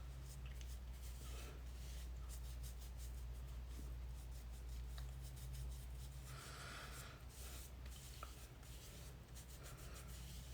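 A scrubbing pad soaked in toner being rubbed over facial skin: soft, irregular scratchy rubbing strokes, over a steady low hum.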